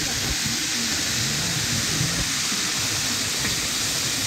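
Meat sizzling steadily on a large open grill, an even hiss, with crowd chatter faintly underneath.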